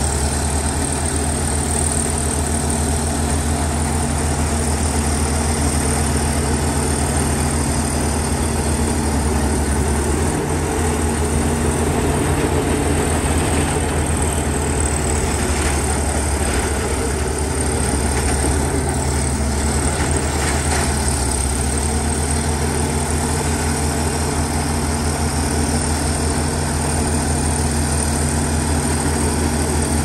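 Diesel engine of a Komatsu D61EX crawler bulldozer running steadily, an even low drone with slight changes in load between about ten and twenty-two seconds in.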